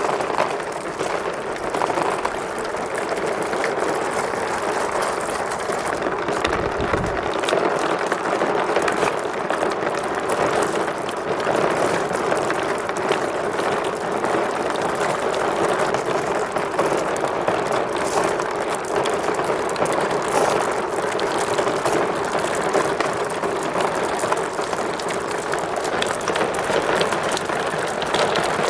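Many marbles rolling and clattering down plastic track slopes, a steady dense rattle of small clicks.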